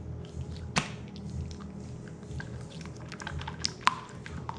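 Very wet Play-Doh slime squelching as it is squeezed and worked in the hands, with irregular small wet clicks and pops. A sharp pop comes about three quarters of a second in and another near the four-second mark.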